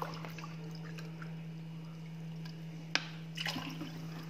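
Water poured from a drinking glass into a stainless steel saucepan of sugar to make sugar syrup, with a single sharp click about three seconds in. A low, steady hum runs underneath.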